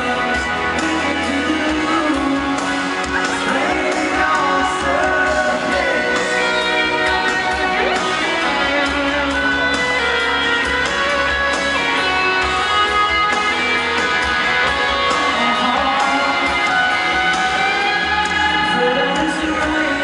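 Live country-pop band music with guitar and a singing voice, a full, steady mix.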